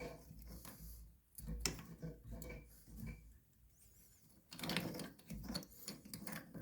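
Light plastic clicks and knocks from toilet fill valve parts being handled and fitted, scattered at first, then a quicker run of clicks in the last couple of seconds.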